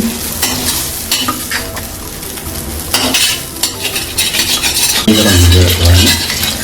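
Spiced lentil mixture frying and sizzling in a pan while a spatula stirs and scrapes it. A low rumble swells briefly about five seconds in.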